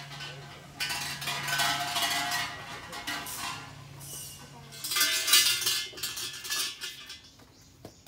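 Shinto shrine bell (suzu) shaken by its hanging rope, jangling in two bouts: the first begins about a second in, the second about five seconds in.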